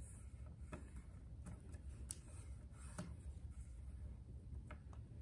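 Faint, sparse paper crinkles and soft taps as sheets of origami paper are creased and pressed flat on a wooden table, over a low steady room hum.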